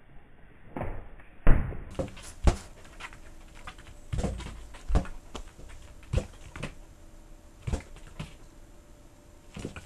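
Irregular thumps and taps as a Welsh corgi jumps at a balloon: paws landing on a wooden floor and the balloon being knocked about. The loudest thump comes about a second and a half in.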